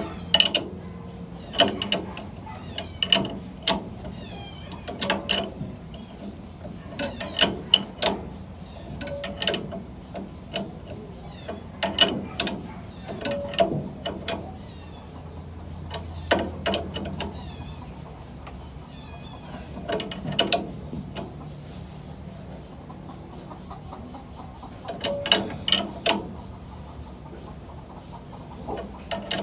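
Short bursts of metallic clicking and clinking every second or two, from a hand tool working the tie rod of an owner-type jeep's front steering linkage while setting the front wheel alignment.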